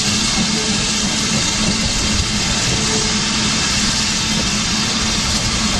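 SR U class 2-6-0 Mogul steam locomotive No. 1638 drifting slowly into the platform: a steady hiss over a low rumble.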